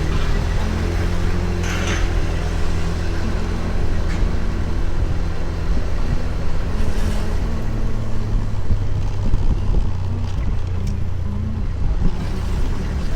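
Small motor scooter engine running under way, with road and wind noise; the engine note shifts about halfway through.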